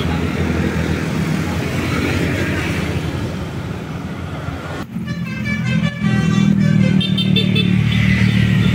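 A bus engine running, then about five seconds in a Basuri telolet horn, a multi-tone musical air horn, starts playing a quick run of changing notes and keeps sounding loudly over the engine.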